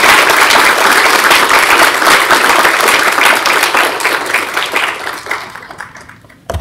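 Audience applauding, loud and dense, then fading out over the last two seconds. A single thump comes right at the end.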